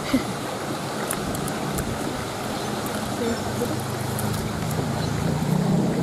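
Steady rush of a small stream flowing over rocks, with a low motor hum rising under it near the end.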